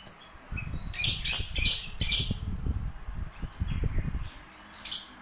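Lovebird chirping in short, shrill, harsh bursts, several in quick succession about a second in and again near the end, over a low thumping rumble in between.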